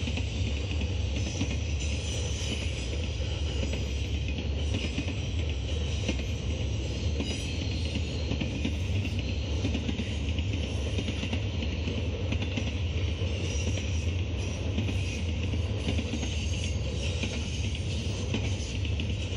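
Double-stack intermodal container cars of a Norfolk Southern freight train rolling past at low speed, a steady, unbroken rumble of wheels on rail.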